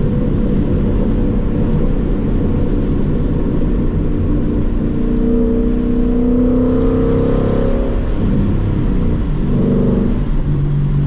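Ford Mustang GT's V8 running through a muffler delete and Steeda H-pipe while driving. The revs climb about halfway through, then fall away at a gear change, with a brief rise again near the end.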